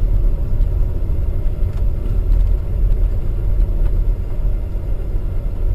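Steady low rumble of a car driving: engine and road noise, with a few faint ticks.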